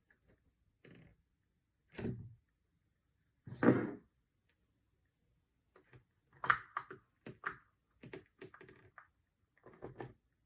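Toy set pieces and packaging being handled: scattered knocks and clicks, the loudest thunk about four seconds in, then a quick run of small clicks.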